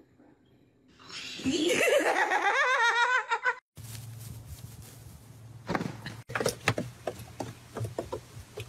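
A person laughing loudly for about two and a half seconds. It stops abruptly at a cut and gives way to a steady low hum with scattered faint taps.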